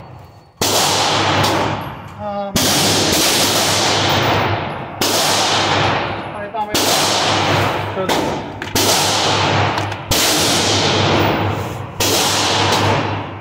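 Pistol shots from other lanes at an indoor shooting range, about nine irregular shots one to two seconds apart, each with a long echo off the range walls.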